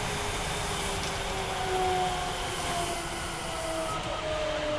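Osaka Municipal Subway 66 series train's Mitsubishi GTO inverter, built to a Hitachi design, whining over steady rail running noise. Its tones fall slowly in pitch as the train slows under braking.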